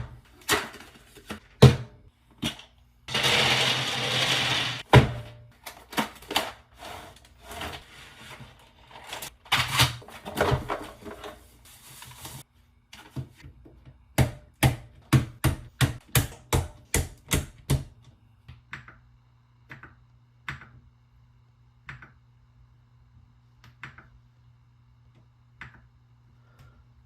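Clicks and knocks from handling a mechanical keyboard and its parts: irregular sharp clicks, a rough rattling noise for about two seconds near the start, then a run of evenly spaced clicks about two a second, and later fainter, sparser clicks over a low hum.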